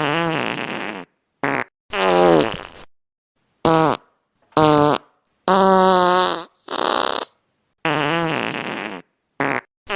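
A string of fart sound effects: about ten separate short blasts one after another, with dead silence between them. Several of them drop in pitch as they go.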